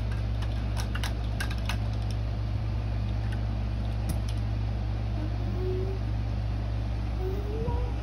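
Steady low hum in the room, with a few light clicks in the first two seconds and a baby's short, soft vocal sounds near the end.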